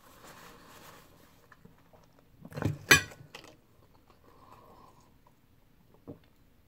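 Close-up eating and handling sounds: soft rustling of a paper napkin while chewing, then a few sharp knocks about three seconds in, the loudest sounds, and a single click near the end as a glass of tea is raised to drink.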